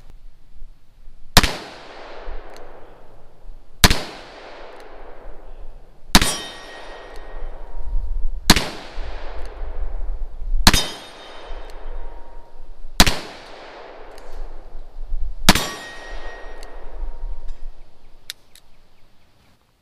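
Taurus Model 66 .357 Magnum revolver firing seven shots of full-power .357 Magnum, emptying its seven-round cylinder, one every two to two and a half seconds. Each shot is a sharp crack followed by a long, fading echo.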